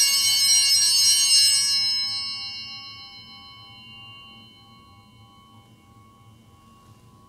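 Altar bells ringing at the elevation of the chalice, marking the consecration of the wine. The ringing is loud for about two seconds, then dies away, with a lower tone lingering faintly.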